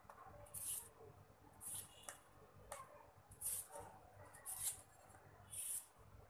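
Kitchen knife peeling the skin off a cucumber in strips: a soft scraping stroke about once a second, with a few light clicks of the blade between strokes.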